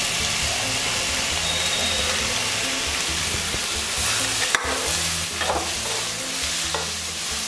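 Julienned potato strips sizzling in hot oil in a kadai while a spatula stirs them, with a sharp knock of the spatula against the pan about four and a half seconds in.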